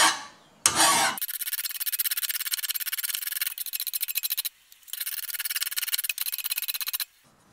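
Hand file rasping across the steel cutting edge of a lawn mower blade clamped in a vise, sharpening it along the existing bevel. Quick, even strokes come in three runs with two short breaks, after a louder first scrape, and stop shortly before the end.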